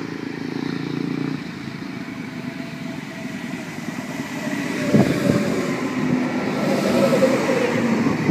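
Double-deck V-set intercity electric train pulling into the platform, its running noise growing louder as it comes alongside, with a sharp clunk about five seconds in.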